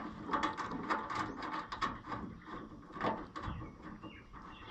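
Small metal terminals and wires being handled and fitted behind a tractor's instrument panel: a quick run of light clicks and rattles for the first couple of seconds, then a few scattered knocks.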